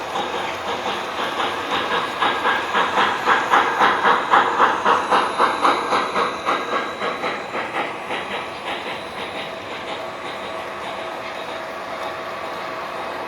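O gauge model train running on its track, its wheels clicking rhythmically over the rail joints at a few clicks a second. It grows louder as it comes close, loudest about four seconds in, then fades to a steady rumble as it moves away.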